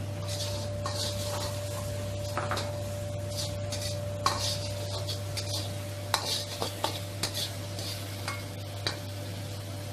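Steel ladle scraping and clanking against a wok as capsicum and onion are stir-fried, over a steady sizzle of hot oil and a constant low hum. The sharpest clanks come in a cluster about four to seven seconds in.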